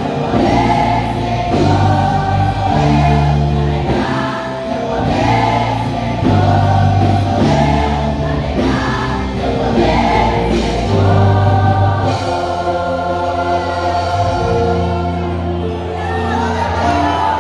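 Women's choir singing a gospel song with an accompanying church orchestra of wind and brass instruments, with a steady bass line moving every second or two.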